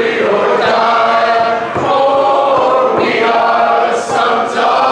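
A trio of voices, two women and a man, singing a song together unaccompanied, with long held notes.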